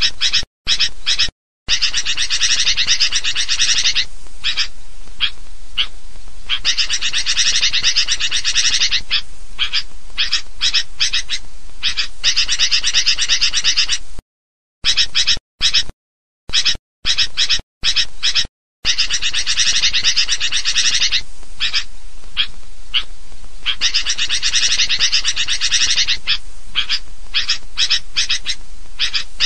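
Sooty-headed bulbuls chattering noisily in a dense, continuous chorus of calls: a recorded kutilang lure track meant to draw wild birds in. The recording drops to silence for short moments about a second in and several times around the middle.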